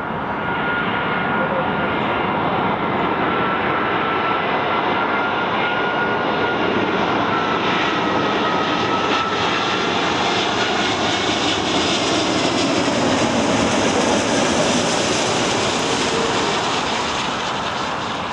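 Jet airliner engines on approach: a steady rush of jet noise with a high whine that slowly lowers in pitch, growing louder as the aircraft nears and easing off near the end.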